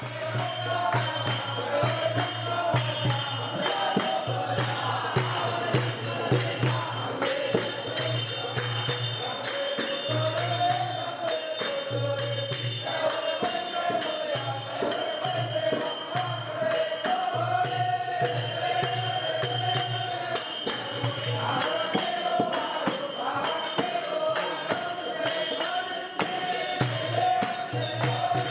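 Hindu devotional music: voices chanting a melody over a fast, steady beat of jingling percussion, with a low drum part coming and going.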